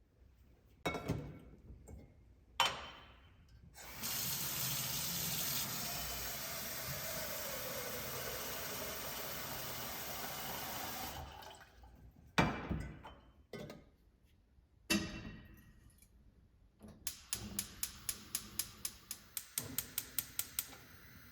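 Kitchen tap water running steadily for about seven seconds, with a slowly falling tone in the stream. Sharp knocks come before and after it, and a quick run of rhythmic taps near the end.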